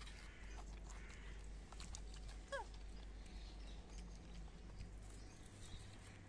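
Faint outdoor ambience with scattered small clicks and a low rumble, and one short, falling squeak from an animal about two and a half seconds in.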